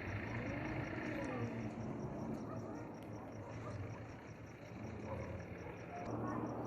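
Domestic cats yowling at each other in a standoff: low, wavering, drawn-out calls, most prominent in the first couple of seconds, over a steady low hum.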